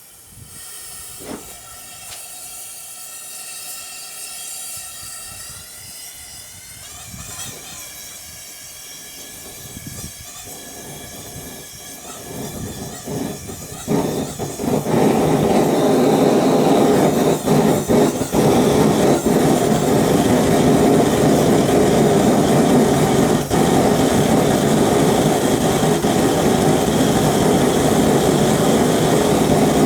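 Single-burner gas forge starting up on its first firing: gas hissing through the burner with a few clicks, then about 14 seconds in the burner lights and settles into a loud, steady roar.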